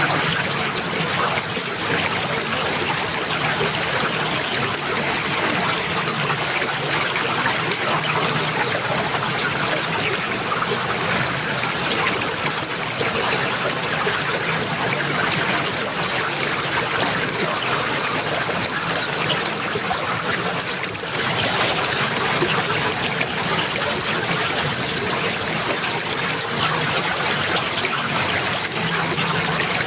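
Running water trickling and flowing steadily, with a brief dip in level about two-thirds of the way through.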